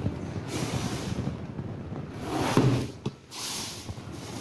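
Cardboard box being handled and turned over on a wooden table: cardboard rubbing and sliding, with a thump about two and a half seconds in, over a steady low background rumble.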